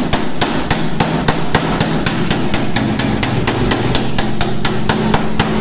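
Steel hammer rapidly tapping a tack-welded steel repair patch on a Land Cruiser 40-series body panel, about three to four even strikes a second, with a steady low hum underneath. The strikes knock down the high spots along the weld so the patch sits low.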